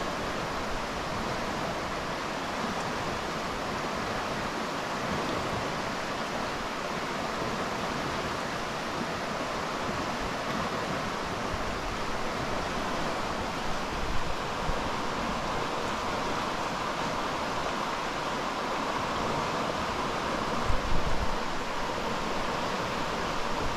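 Steady rush of fast-flowing stream water. A couple of brief low thumps stand out, one about halfway through and one near the end.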